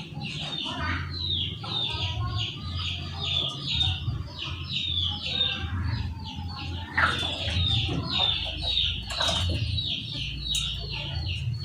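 Chickens chirping in a rapid, steady string of short high calls, about three a second, with a couple of brief scuffles in the second half as a hen sick with the snoring respiratory disease is held and her throat is swabbed to clear mucus.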